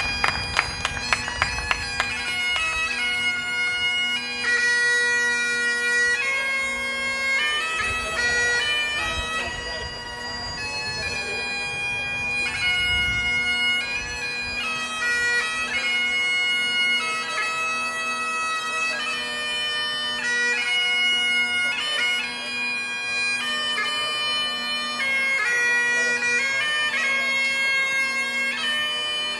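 Bagpipes of a fire department pipe band playing a slow tune: held chanter notes stepping from one to the next over a steady drone. A run of sharp claps or taps sounds in the first couple of seconds.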